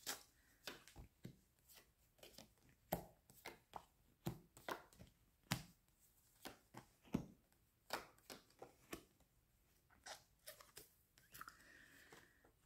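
Faint, irregular clicks and taps, one or two a second, from tarot cards being handled and laid down.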